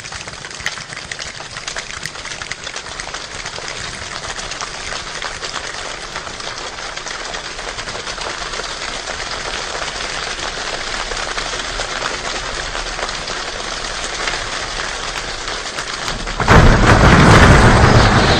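A choir imitating a rainstorm with body percussion: a dense crackle of many snaps and slaps builds slowly in loudness, then near the end breaks into a sudden, much louder burst of slapping and stomping, like a downpour with thunder.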